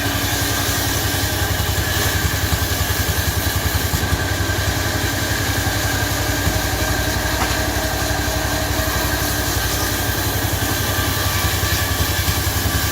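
Chainsaw engine idling steadily at an even speed, with no revving.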